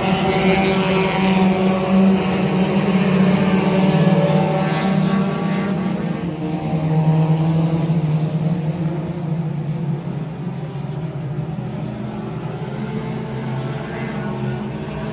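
Front-wheel-drive dirt-track race cars running laps in a pack, several engines at once, loudest in the first half and fading after about ten seconds.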